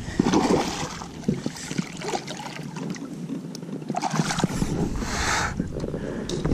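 A hooked bass splashing at the surface against the side of a fishing boat as it is landed by hand, with water sloshing and a few small knocks. The splashing comes twice, just after the start and again about four seconds in.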